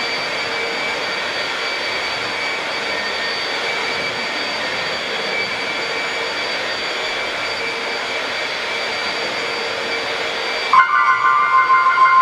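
Upright vacuum cleaner running with a steady whirring hiss. Near the end the hiss drops away and a louder, uneven whine takes over.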